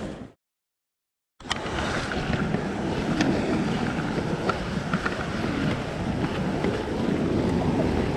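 Waves washing on an ocean rock shelf, with wind buffeting the microphone; the sound cuts out completely for about a second near the start.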